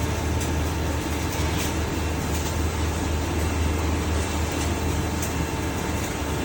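Milling machine running with a steady low hum and a constant whirring hiss.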